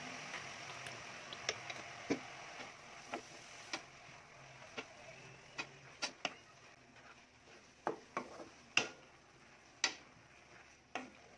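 Wooden spatula knocking and scraping against an aluminium wok as sliced oyster mushrooms are stirred, in irregular sharp clacks. A steady hiss under the first few seconds fades out about four seconds in.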